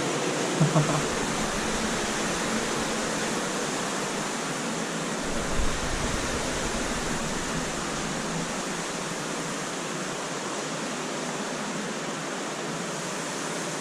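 Steady rush of falling and cascading water from an underground waterfall echoing in the cave passage, with a single dull low bump a little before the middle.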